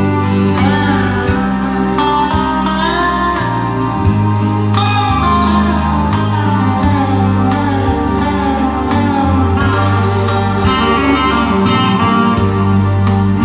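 Music played back through Dali Ikon 5 mk2 loudspeakers: a guitar-led piece with sliding melody notes over a steady bass line and a regular beat.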